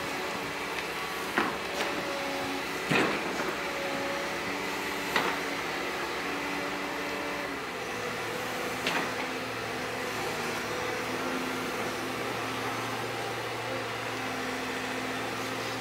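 Liebherr R926 compact excavator running, a steady engine and hydraulic drone whose whine shifts in pitch as the boom and tiltrotator bucket move. A few sharp knocks come in the first half.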